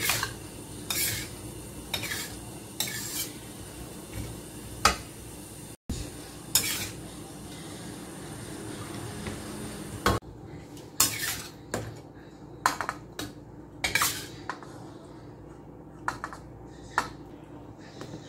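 Metal spatula scraping and clanking against a stainless steel wok while stir-frying sliced bamboo shoots, about one stroke a second, over a low steady hum. In the second half the strokes turn quicker and more irregular, clinks and scrapes as the shoots are scooped out of the wok onto a plate.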